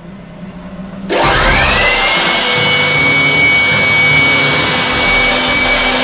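Handheld corded electric blower switched on about a second in: its motor whines up to speed within about half a second, then runs steadily at full power with a loud rush of air.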